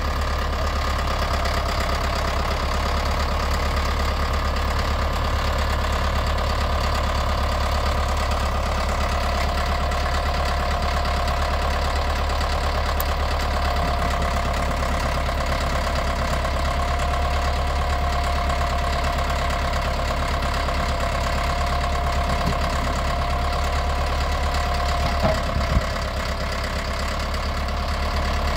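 Caterpillar 951C track loader's diesel engine running steadily, with a steady whine over the engine note. A couple of short knocks come about 25 seconds in, after which the sound drops slightly quieter.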